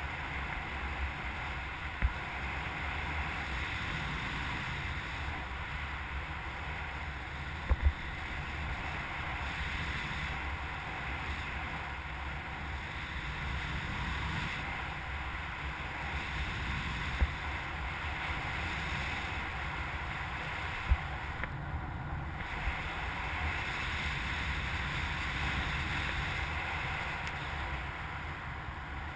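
Steady rush of airflow and wind over the microphone of a camera mounted on a hang glider in flight, with a few short, sharp knocks scattered through it.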